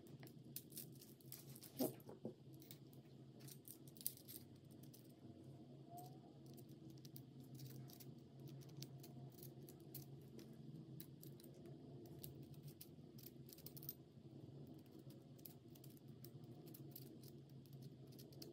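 Faint small metal clicks and taps as a scope and its mount are fitted onto an airsoft rifle's rail, with a slightly louder tap about two seconds in and another about four seconds in, over a low steady hum.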